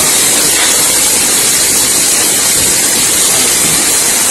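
Heavy rain and hail coming down on a street, a loud steady hiss of falling water and ice.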